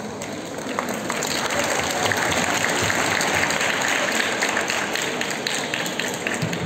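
Audience applauding, a dense patter of many hands clapping that builds about a second in and tapers off near the end.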